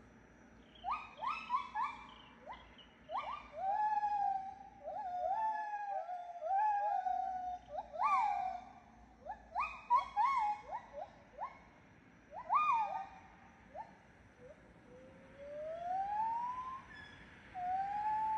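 A series of pitched animal calls: many short rising and falling notes in quick runs, then a long rising call near the end.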